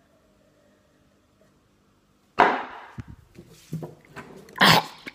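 Near silence, then about two and a half seconds in a sudden knock that fades quickly, a few faint bumps, and a second loud knock and rub near the end: the handheld phone being handled and brushed against clothing.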